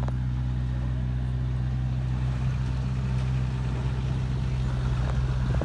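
Engine of heavy construction machinery running steadily, an even low drone.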